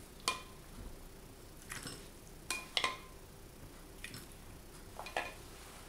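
A ladle knocking and clinking against ceramic bowls while chickpeas in broth are ladled from a large bowl into a small serving bowl, with faint wet sounds of the pour. The knocks are light and scattered, about eight in all, the first and loudest about a third of a second in.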